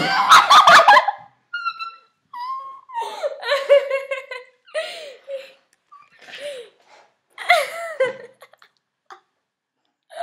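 Young women laughing hard in repeated bursts, loudest in the first second, then in shorter breaks of giggling with pauses between.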